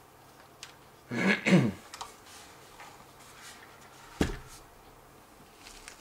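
A brief untranscribed vocal sound from a man a little after a second in, then a single knock about four seconds in as a DJI Phantom 3 quadcopter is set down on its landing skids on the tabletop.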